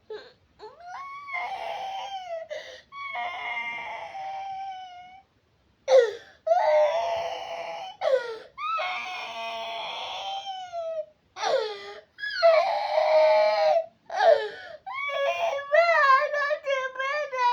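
A toddler crying: a run of long, high-pitched wails of one to two seconds each with short breaths between, turning into quicker, choppier sobbing near the end.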